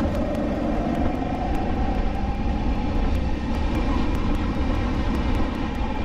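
SODI LR5 rental kart's 160cc four-stroke engine running at racing speed, heard from the driver's seat. Its note rises a little in the first second and then holds, over a steady low rumble.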